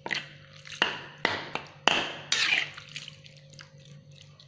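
A spatula stirring a thick coconut-milk curry in a pan: about five sharp knocks and scrapes against the pan in the first three seconds, with wet sloshing of the sauce, then only soft small clicks.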